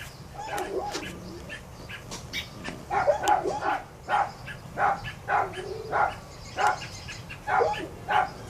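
A dog barking over and over, short barks about two a second, heaviest in the second half.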